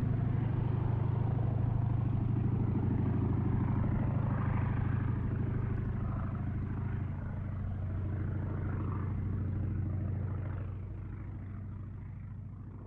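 Max Holste Broussard propeller plane's radial engine droning steadily as it flies away, its sound slowly fading over the last few seconds.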